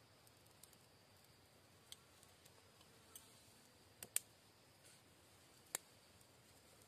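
Dry twigs clicking and snapping as they are handled, a few short sharp clicks over near silence, the loudest a close pair about four seconds in.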